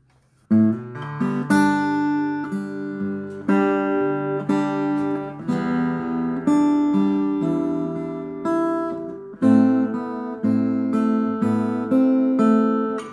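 Acoustic guitar plugged into an Aroma AG-15A 15-watt acoustic guitar amp with a 5-inch speaker, played as chords and melody notes through the amp. It starts about half a second in and stops near the end.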